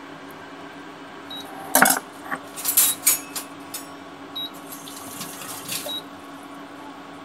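A steel ladle stirring and scraping thick cooked dal in a steel pressure-cooker pot. A sharp clink of metal on metal comes about two seconds in and a few more about a second later, with softer wet stirring near the end.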